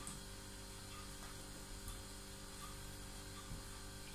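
Quiet room tone with a faint steady electrical mains hum and light hiss, and one small tick about two seconds in.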